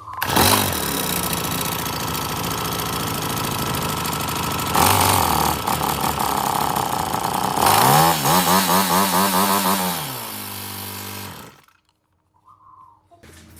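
A handheld power tool runs hard for about eleven seconds, its pitch wavering under load, then drops back and stops near the end.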